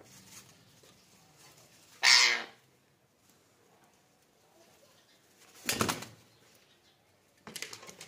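Indian ringneck parakeet making three short bursts of sound with quiet between: a loud squawk about two seconds in, then brief bursts of wing flapping around six seconds and near the end.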